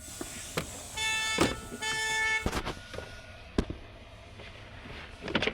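A vehicle horn sounds twice, two short toots about a second in, among scattered clicks and knocks from plastic steering-column trim and tools being handled, over a low steady hum.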